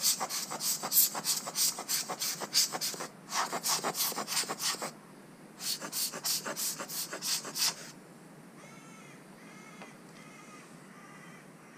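Precision screwdriver driving tiny screws into an iPhone's metal shield plate, clicking fast and evenly, about four or five clicks a second, in three runs with short breaks, stopping about two-thirds of the way through. Faint high, wavering cries follow near the end.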